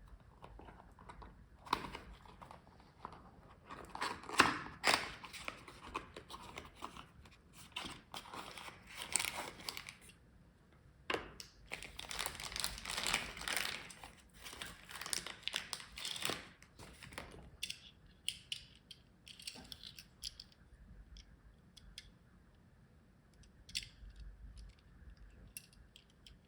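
Cardboard box and plastic packaging of a die-cast model car crinkling and rustling in irregular bursts as it is opened, dying down to a few light clicks in the last third.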